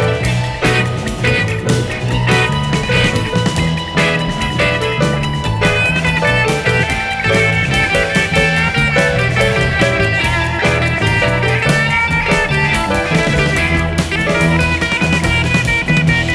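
Background music: a guitar-led instrumental with bass and drums, keeping a steady beat.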